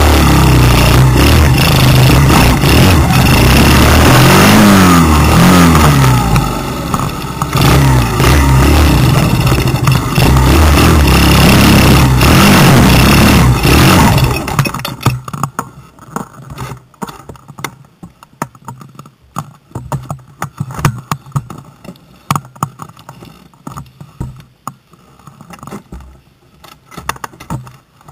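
Dirt bike engine running loud and revving up and down, heard from on board. About halfway through the engine cuts out, leaving scattered clicks and rattles.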